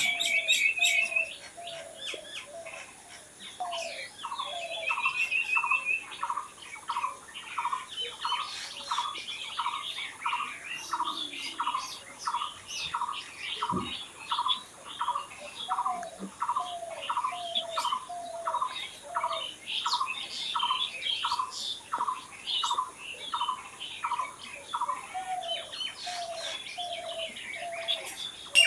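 Several wild birds singing and calling at once. One repeats a single low note about three times every two seconds for most of the stretch, while others add short trills and quick high chirps over it.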